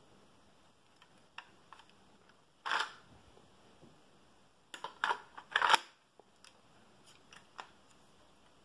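Handling noise from a LEGO brick model rifle being turned over in the hand: scattered light plastic clicks and rattles, with a brief louder rattle about three seconds in and a cluster of louder ones between five and six seconds in.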